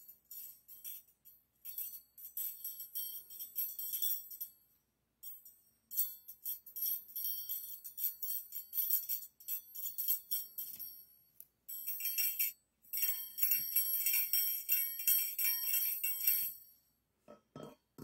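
Two stainless-steel hand-mixer beaters clinked and rubbed against each other by hand, giving a rapid run of bright metallic chinks and jingles in three stretches with short pauses between them. A few duller, lower taps come near the end.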